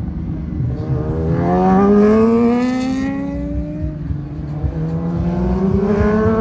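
Superbike engine accelerating hard, its note climbing steadily in two long rises and loudest about two seconds in.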